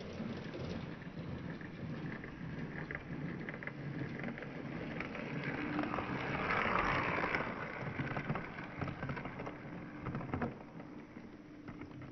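Lego train rattling along plastic track: a steady clattering hiss dotted with small clicks. It grows louder to a peak a little past halfway, then fades.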